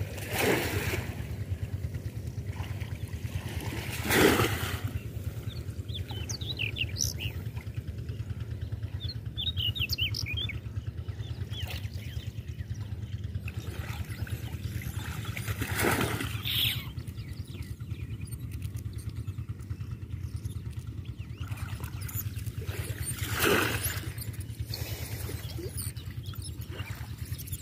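Outdoor ambience: a steady low rumble with several louder swells, and birds chirping briefly twice.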